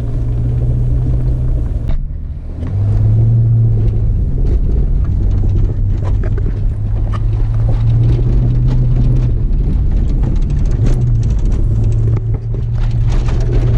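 Holden VS Commodore engine running steadily at a gentle cruise, heard from inside the cabin, easing off briefly about two seconds in, with frequent small clicks and knocks over the rough ground.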